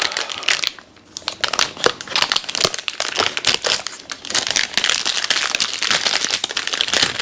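Plastic packaging crinkling and crackling as an Epson ink cartridge is unwrapped and handled, in a dense run of irregular crackles with a short pause about a second in.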